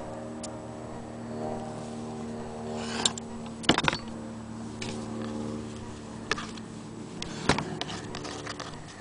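Sharp clicks and knocks of metal parts being handled on an 1890s Victorian sewing machine, with the loudest cluster just before the middle and single knocks later. Under them runs a steady low droning hum.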